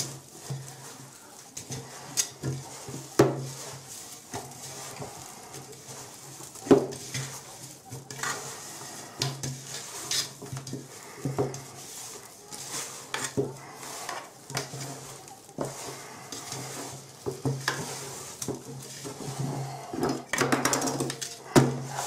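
Clatter of a metal pot being handled: irregular knocks, clinks and scrapes, over a low hum that comes and goes.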